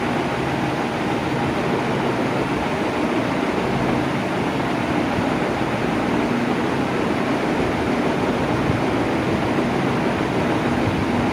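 Electric fan running steadily at constant speed: an even rush of moving air with a faint motor hum underneath.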